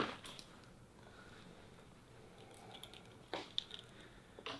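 Quiet room with a few brief, faint rustles and soft clicks of handling, once at the start and a few more near the end.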